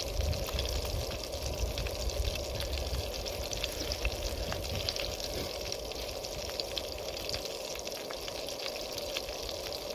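Whole spices (bay leaves, cumin seeds, green cardamom pods) sizzling in hot oil and butter in a pan: a steady frying hiss with many small crackling pops, the tempering of spices at the start of a curry.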